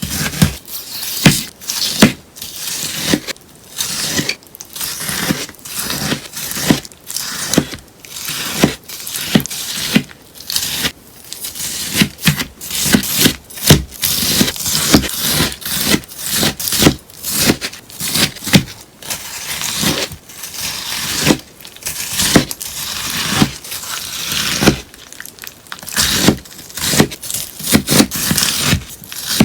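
A sponge being cut again and again: a steady run of crisp, sharp cuts, about two a second.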